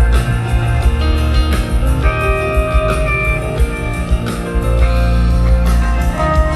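Live rock band playing an instrumental jam, electric guitar lines held over a steady beat.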